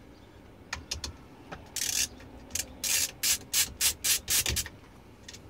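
A few light clicks, then a quick run of about a dozen short scraping, rubbing strokes over a couple of seconds, made by hand work on parts.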